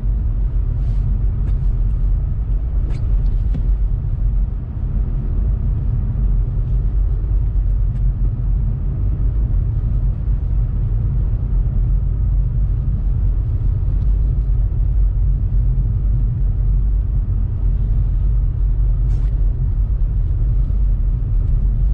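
Steady low rumble of a 2018 Honda Civic Sport hatchback driving on snow-covered streets, from its engine and its mud-and-snow tyres on the snow, with a few faint ticks.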